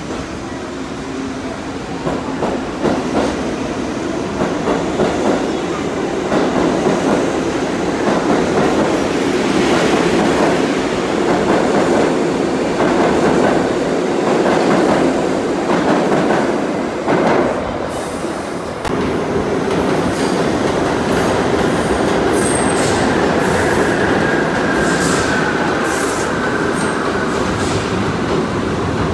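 New York City subway trains running through an underground station: a steady rumble with the wheels knocking over rail joints, easing off briefly about two-thirds of the way through. Near the end a thin, high wheel squeal rises over the rumble.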